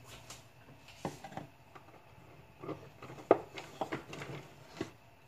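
Kitchen utensils handled around a saucepan on the stove: a handful of light, irregular clicks and knocks, the sharpest about three seconds in.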